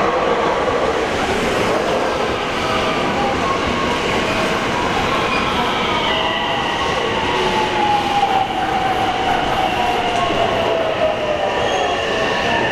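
JR West 321 series electric multiple unit pulling into the platform, its wheels running on the rails. From about halfway through, a motor whine falls steadily in pitch as the train slows for its stop.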